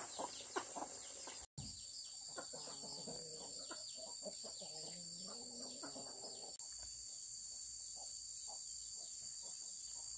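Chickens clucking, with a steady high insect drone behind them. The sound drops out for a moment about one and a half seconds in.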